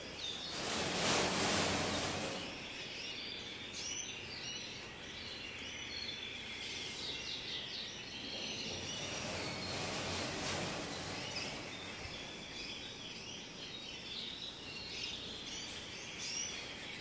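Canaries chirping and twittering in many short high calls, with a rustling hiss swelling briefly near the start and again about ten seconds in.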